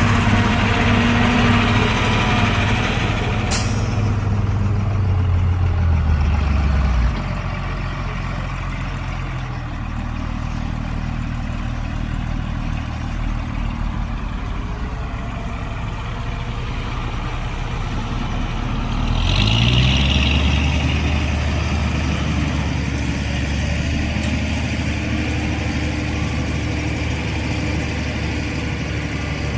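Heavy diesel engine of a dump truck or bulldozer running under load, with a sharp click about three and a half seconds in. The engine drops to a lower, quieter run about seven seconds in, then picks up again with a short hiss around twenty seconds in and settles into a steady run.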